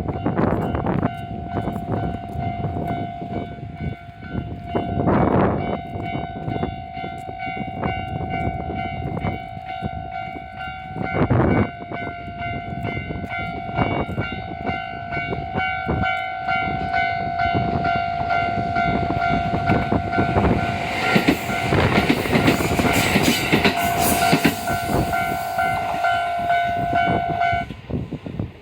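Railway level-crossing warning alarm ringing continuously while a train passes over the crossing; the rush of the train's wheels on the rails builds up and is loudest around two-thirds of the way through. The alarm stops shortly before the end.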